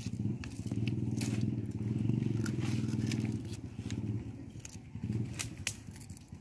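A small engine running steadily nearby as a low drone, fading away over the last couple of seconds, with scattered light clicks and crackles over it.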